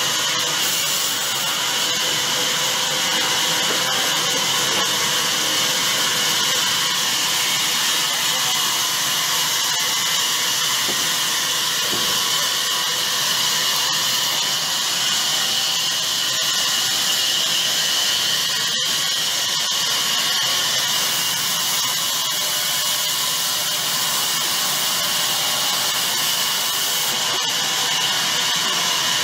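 Electric band saw running steadily while its blade cuts through timber: a loud, even, high-pitched hiss and whine that breaks off for an instant about two-thirds of the way through.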